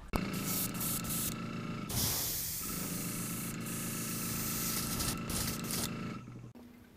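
Airbrush spraying pearlized white paint through scale netting onto a hand-carved lure: a steady hiss of air over a low hum. The spray grows louder and brighter about two seconds in, then tails off near the end.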